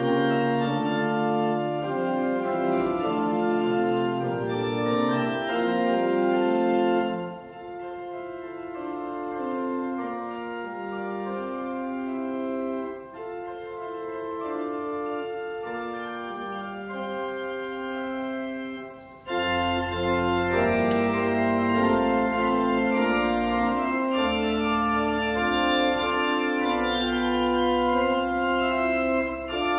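Organ playing slow, sustained chords. A softer passage without bass notes runs through the middle, and deep pedal bass notes come back in about two-thirds of the way through, louder again.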